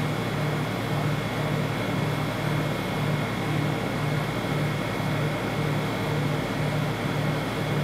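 Refrigerated cold plate of a rolled-ice-cream machine running: a steady mechanical hum with a low throb pulsing about twice a second and faint steady high tones above it.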